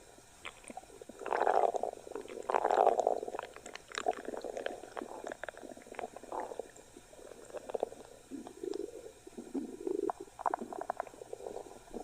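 Stomach growling and gurgling. Two loud rumbles come within the first few seconds, followed by a run of softer bubbling gurgles and small squelching clicks.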